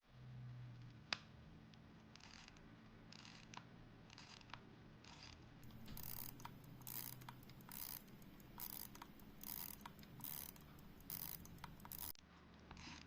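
A Zenith 19-ligne pocket watch being wound at the crown, its ratchet clicking faintly in short repeated strokes, about one to two a second, with a single sharp click about a second in.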